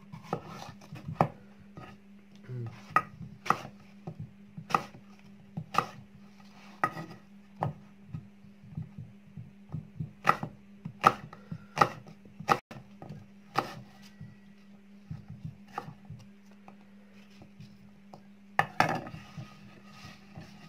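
A chef's knife chopping an apple on a wooden cutting board: sharp, irregular knocks of the blade on the wood, about one or two a second, with a denser flurry near the end. A steady low hum runs underneath.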